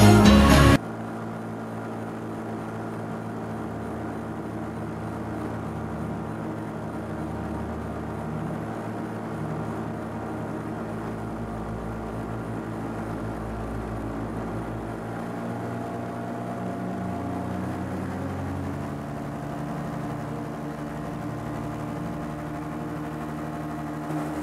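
Paramotor engine running steadily in flight, its note rising somewhat about 18 to 20 seconds in as the throttle is opened. The tail of a music track ends just under a second in.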